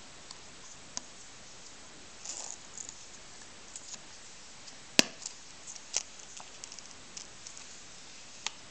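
Small clicks and brief rustles of a hunting knife being handled in its leather sheath, with one sharp click about five seconds in.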